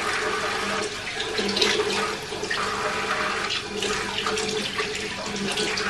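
Bathroom tap running into a washbasin, with uneven splashing as water is scooped up to wash the face.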